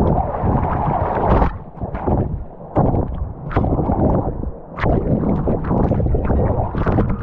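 Water rushing down an irrigation channel and splashing over a camera held at its surface, churning and gurgling in irregular surges.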